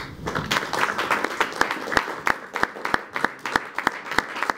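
Audience applause starting up and carrying on, a dense patter of many hands with sharper, closer claps standing out about three times a second.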